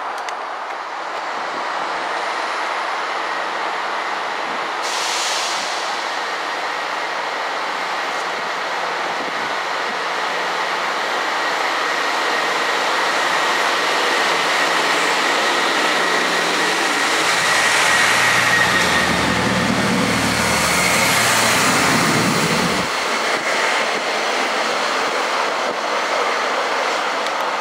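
Diesel train running past on the line: a steady rush of wheel and rail noise with a thin high ringing tone from the rails. A low engine note comes in about two-thirds of the way through and cuts off suddenly a few seconds later as the powered car goes by.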